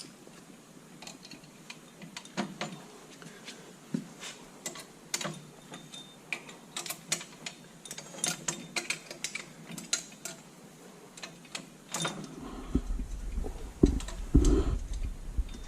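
Irregular metallic clicks and clinks of a wrench snugging up the nuts on a tractor quick hitch's U-bolts, followed near the end by a low rumble with two heavy knocks of metal being handled.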